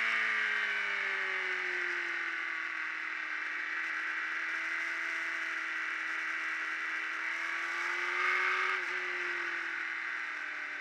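Ducati Streetfighter's V-twin engine under way at track speed. The revs drop at first and hold steady, climb a little about eight seconds in with a quick blip, then fall away again.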